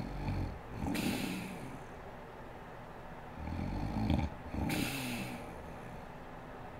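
A sleeping woman snoring: two breaths, each a low, rough snore followed by a breathy rush of air.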